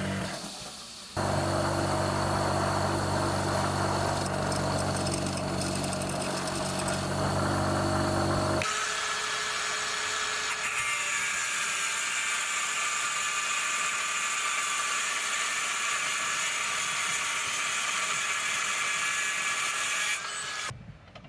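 Electric power tools running steadily in two stretches: first a motor with a low hum, then, from about eight seconds in, a higher-pitched tool, each starting and stopping abruptly.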